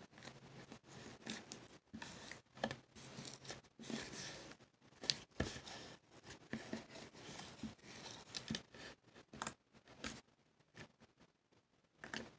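Glitter slime being pressed, squeezed and pulled off a tabletop by hand: a run of soft, irregular sticky clicks and crackles that thins out near the end.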